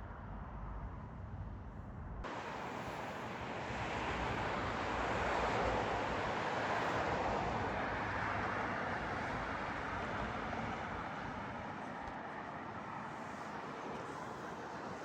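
Train running: a steady rumble and rushing noise that changes abruptly about two seconds in, swells around the middle, then eases off.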